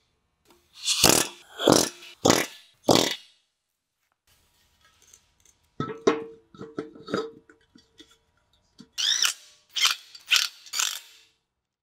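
Cordless driver run in short bursts, spinning the nuts onto the studs of a drum-brake backing plate, in two groups of about four pulls of the trigger. Between them come small metallic clinks with a faint ring as the steel backing plate is handled.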